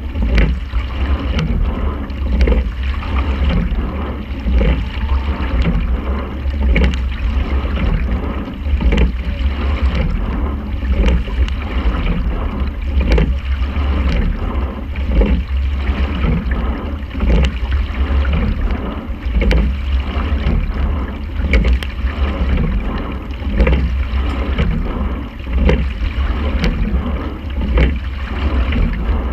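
Quadruple sculling shell under way, with a knock from the sculls in their oarlocks on each stroke, about every two seconds in an even rhythm, over a steady low rumble.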